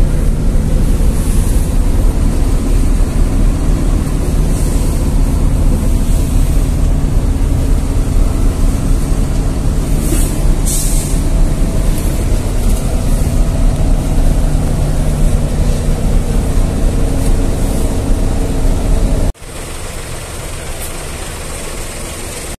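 Coach's diesel engine running with a steady low rumble, heard from inside the passenger cabin, with a couple of short hisses about ten seconds in. Near the end the sound drops abruptly to a quieter, steady engine hum.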